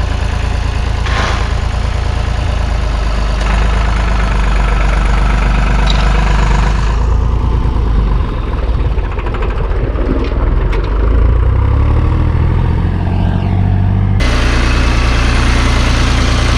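A vehicle engine running steadily. Its pitch shifts and climbs through the middle of the stretch, then drops back abruptly near the end as the load or throttle changes.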